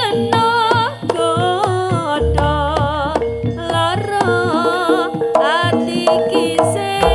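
Jaranan gamelan music playing loud: hand-drum strokes under a wavering melody line with vibrato, over a steady held tone, and a deep low note that swells in about two seconds in.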